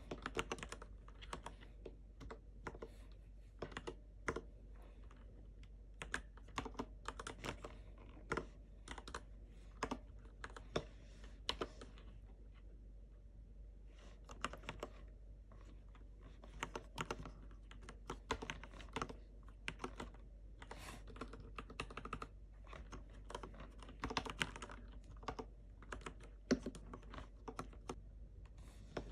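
Typing on a Varmilo VA108Mac V2 mechanical keyboard with red linear switches: uneven runs of keystrokes broken by short pauses.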